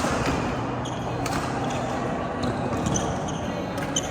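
Badminton rally: sharp racket strikes on the shuttlecock, a few in a row about a second or so apart, over a steady background noise.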